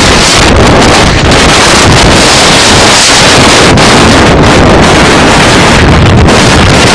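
Strong whirlwind gusts blasting the phone's microphone: loud, continuous wind noise with no let-up.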